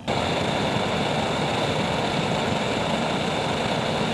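Vintage brass liquid-fuel blowtorch burning at full flame with a steady rushing noise, its jet heating a small piece of steel held in tongs to red heat.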